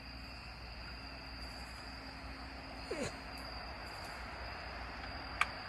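Crickets chirring steadily, a continuous high-pitched trill, with a single sharp click near the end.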